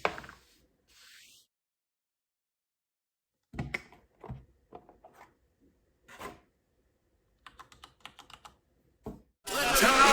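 Scattered key presses on a mechanical keyboard, with a few louder knocks and a quick run of light key ticks near the end, then music comes in just before the end.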